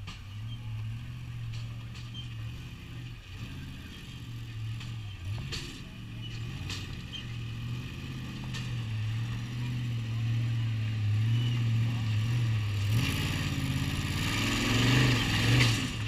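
Off-road race buggy's engine running and revving as it climbs over boulders, growing louder over the last few seconds as a rough, gritty noise of tyres scrabbling on rock joins in.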